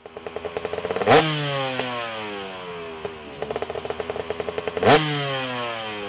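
Motorcycle engine revved twice: each time the firing quickens, the pitch climbs sharply, once about a second in and again near five seconds, then winds slowly back down.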